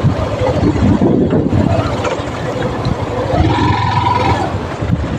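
Motorcycle ridden on a rough offroad track, its engine running under a continuous rumble of wind buffeting the microphone.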